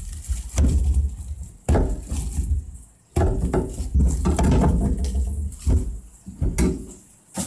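Napa cabbage leaves being pulled off the head and set down on a cutting board: rustling and crackling of the crisp leaves with soft knocks against the board, in several separate bursts.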